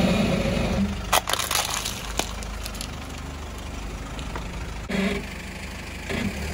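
A car tyre rolling slowly over a clear plastic tub of water beads, the tub breaking with a cluster of sharp cracks about a second in and another crack a second later. The car's engine idles steadily underneath.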